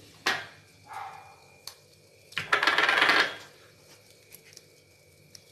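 Kitchen clatter of metal utensils and dishes: a sharp ringing metallic clink just after the start, a lighter clink about a second in, then a loud rattling clatter lasting about a second midway. A few light clicks follow near the end.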